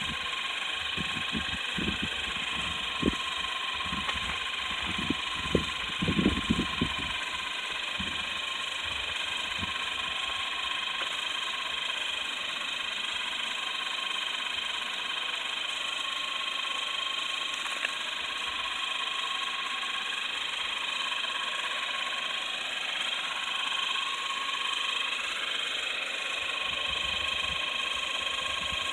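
Steady whine of the two small battery-powered electric motors turning a popsicle-stick model helicopter's tandem rotors, holding several fixed high tones. A few low knocks and thumps come in the first several seconds.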